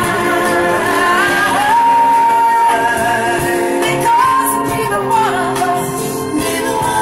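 A woman singing into a handheld corded microphone, gliding between notes and holding long, wavering notes.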